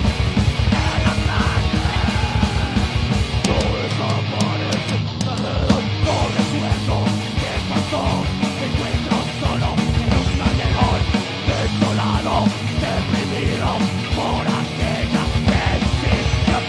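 Heavy metal band playing live: distorted electric guitars, bass and fast drums, with shouted vocals over them. The lowest end drops out briefly about four seconds in and again around eleven seconds.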